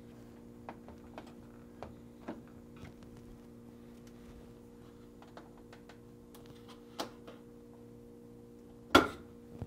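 Small clicks and taps of a plastic freezer-drawer stop being worked loose from its locking tab and pulled off the drawer rail. There is a scattering of light clicks early, then a sharper click near the end, over a faint steady hum.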